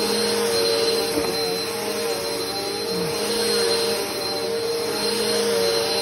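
Upright vacuum cleaner running on a rug: a steady motor hum with a thin high whine above it, the pitch wavering slightly as it is pushed over the pile.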